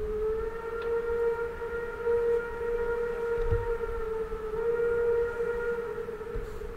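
Steam whistle of the DRG class 01 express locomotive 01 150 blown in one long steady blast, its upper notes briefly weakening about four seconds in.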